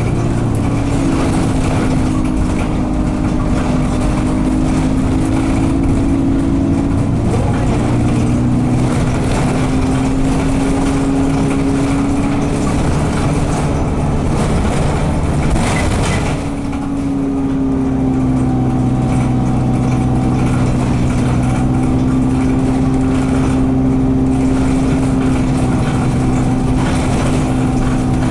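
Diesel engine of an Alexander Dennis Enviro200 single-deck bus running under way, held in a low gear because its gearbox is stuck in 2nd/3rd. The engine note shifts in pitch, a short hiss comes about halfway, the sound dips briefly, and then the engine settles into a steady drone.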